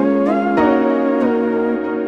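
Background music: a gliding lead melody that slides up and back down over sustained held chords.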